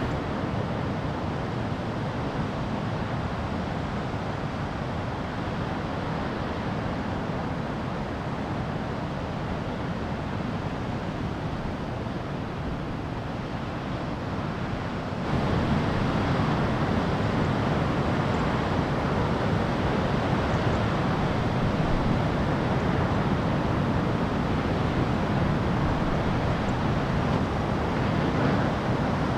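Steady wash of ocean surf and wind on the microphone, with no single wave crash standing out; about halfway through it jumps abruptly louder and brighter.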